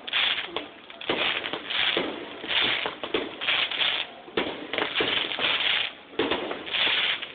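Aerial fireworks going off in quick succession: a string of sharp bangs, each followed by a spell of crackling.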